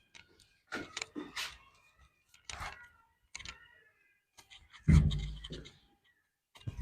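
Scattered knocks and thumps from hands-on chiropractic treatment, the loudest a heavier thump about five seconds in.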